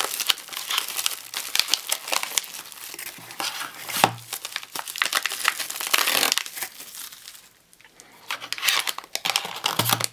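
Bubble-wrap pouches and a plastic anti-static bag crinkling and crackling as they are handled and pulled out of a cardboard box, with a short lull about three-quarters of the way through.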